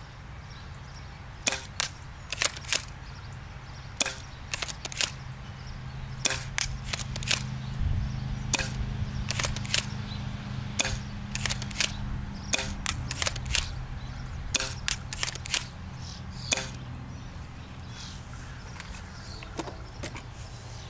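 Smith & Wesson M3000 pump-action, spring-powered airsoft shotgun being fired again and again: sharp mechanical clacks from racking the pump and releasing the spring, coming in small clusters every second or so. The clacks thin out after about two-thirds of the way through, with a couple more near the end. A steady low hum runs underneath.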